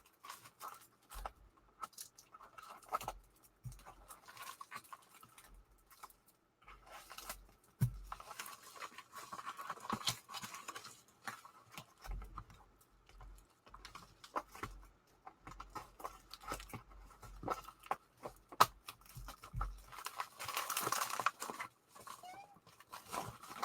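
Packaging being unwrapped by hand: irregular rustling, crinkling and tearing with short clicks and knocks, in two busier stretches, plus one sharp click about eighteen and a half seconds in.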